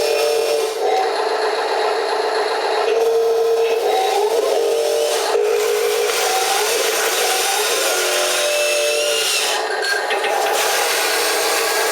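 Wheel loader working a dirt slope: a motor whine that shifts and glides in pitch over a continuous rough scraping, grinding noise.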